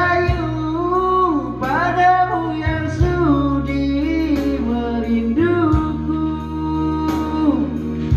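Karaoke backing music for a slow ballad, with singing into a microphone: a gliding melody line over long, steady bass notes.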